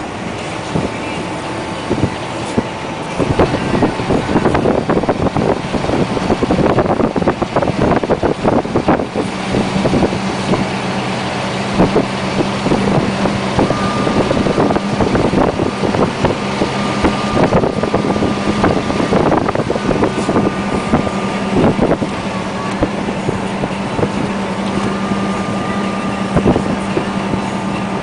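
Loaded UD Quon dump truck's diesel engine pulling hard at full throttle up a hill, with clattering and knocking throughout. A steady drone sets in about ten seconds in.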